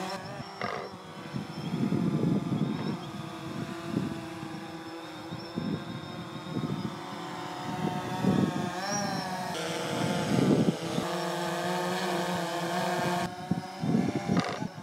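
DJI Phantom quadcopter's propellers buzzing steadily as it flies low, the pitch wavering as it manoeuvres around the middle, with uneven gusty rushing underneath.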